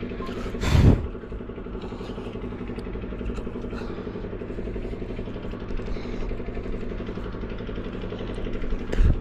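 A steady low mechanical hum, like a motor running, holds at one pitch throughout. It is broken by two brief rumbling knocks on the microphone, about a second in and again near the end.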